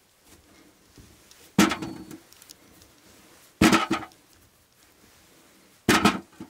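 Potatoes dropped by the handful into a galvanized metal bucket, three times about two seconds apart, each a short clatter of tubers hitting the metal and each other.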